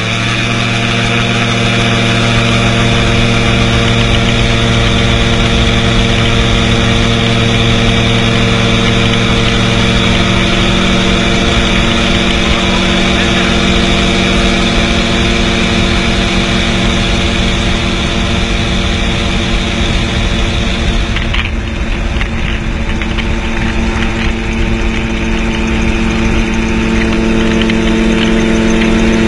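Gyrocopter engine and propeller running at steady full take-off power, a loud even drone with wind rush over the microphone, through the take-off roll and climb-out. About twenty seconds in a high whine drops away and the sound turns rougher.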